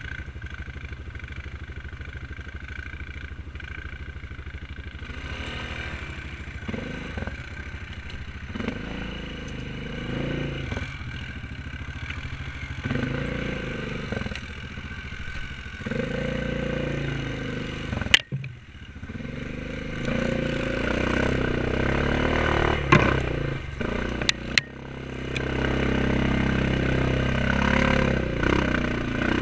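Single-cylinder quad-bike (ATV) engine idling steadily, then revving up and down over and over as the quad pushes through undergrowth, with clattering and scraping. Two sharp knocks cut through, a little past halfway and again about six seconds later.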